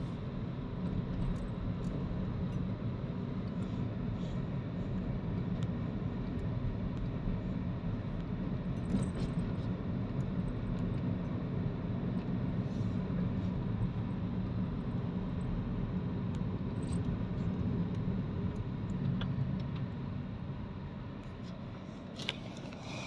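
Steady low road and engine rumble heard inside a moving taxi's cabin, with scattered faint ticks. It grows quieter near the end, and a brief sharp click comes just before it ends.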